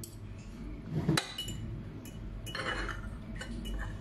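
Metal spoon and fork clinking and scraping against a ceramic bowl: one sharp, ringing clink a little over a second in, then a cluster of clinks and scrapes around three seconds and a few lighter taps near the end.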